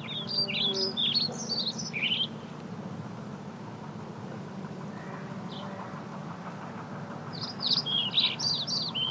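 A songbird singing two quick phrases of rapid high notes, each about two seconds long, one at the start and one near the end, over a steady low hum.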